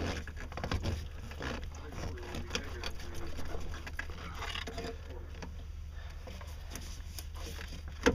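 Handling noise as the rubber J hose of a marine engine's cooling system is worked off its fitting at the recirculation pump to drain it: irregular scrapes and small knocks, with one sharp click near the end and a steady low hum underneath.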